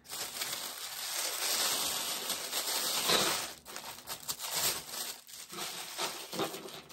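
Close crinkling and rustling of handled packaging: a continuous rustle for about three and a half seconds, loudest near the three-second mark, then shorter intermittent rustles.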